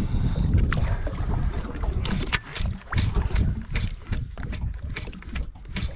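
Water sloshing against a drifting boat's hull and wind buffeting the microphone, with irregular clicks and knocks.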